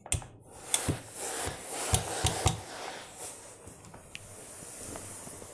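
A jacket's cloth and shiny lining rustling as it is handled and turned over on a cloth-covered table, with a few light knocks in the first couple of seconds, then a soft steady hiss that grows towards the end.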